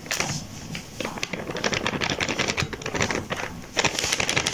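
Metal mesh sieve shaken and tapped to sift flour, making a fast run of light rattling ticks. The ticks thin out briefly before about a second in, then run on thickly.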